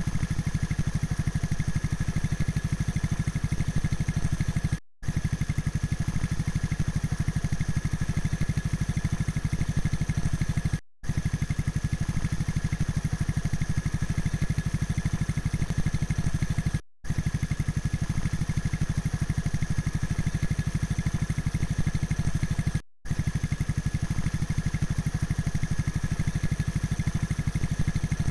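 A crane's engine running steadily with a fast, even beat. It is cut by a brief silent gap about every six seconds.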